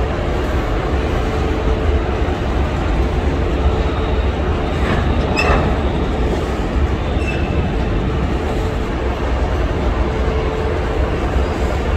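Long goods train of covered wagons rolling past close by: a steady rumble and rattle of wagon wheels on the rails, with brief high squeals from the wheels about five and seven seconds in.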